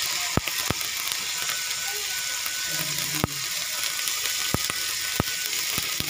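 Meat and tomatoes frying in cooking oil in a wok, a steady sizzle, with about five sharp clicks or taps scattered through it.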